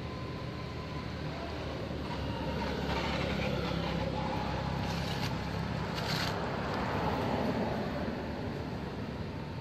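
A motor engine running with a steady low hum that swells over a few seconds and then eases off, like a vehicle going past.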